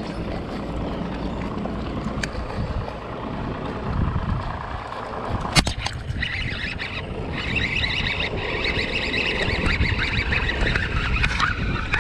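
A baitcasting fishing reel cranked fast, a rattling whir of rapid fine ticks, starting about halfway through and stopping just before the end. Wind buffets the microphone throughout, and a single sharp knock comes a little before the cranking starts.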